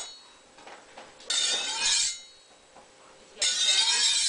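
A blade being sharpened, metal scraping on metal in long strokes with a ringing edge: two strokes, about a second in and near the end.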